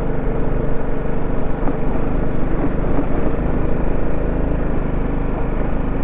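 Motorcycle engine running at steady revs while the bike is ridden over a rough, broken road.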